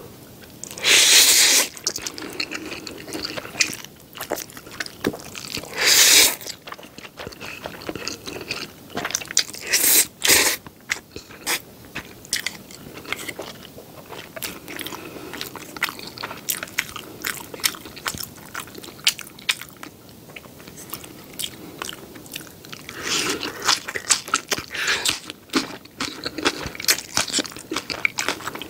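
Close-miked eating of jjapaghetti black bean noodles: loud slurps about a second in, around six seconds and around ten seconds, with a steady run of wet chewing and crunching clicks between them.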